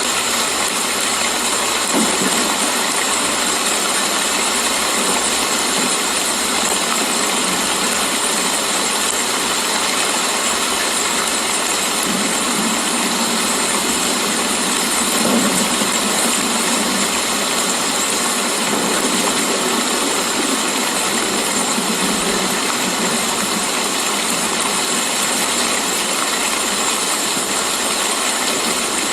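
Steady, continuous rainfall, an even hiss of drops with no pauses.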